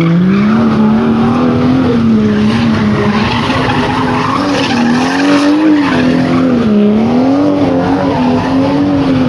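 A car engine held at high revs through a burnout, the pitch swinging up and down every second or two as the throttle is worked, over the hiss and squeal of spinning tyres.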